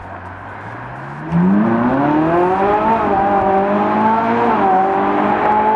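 Ferrari 458 Italia's naturally aspirated 4.5-litre V8 accelerating. It is quieter at first, then about a second in it gets loud and its pitch climbs steadily for about two seconds. It then holds high, with a small drop in pitch near the end.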